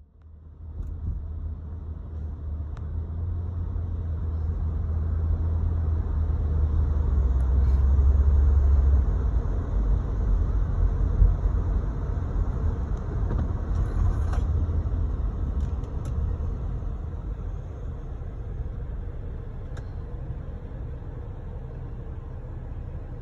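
Car engine and road noise heard from inside the cabin: a low rumble that starts as the car moves off and grows louder over the first several seconds, then eases off a little.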